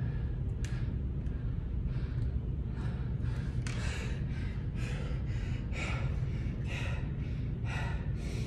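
A man breathing hard in quick gasps, winded from exertion, with the breaths coming faster and stronger after about three seconds. A steady low hum runs underneath.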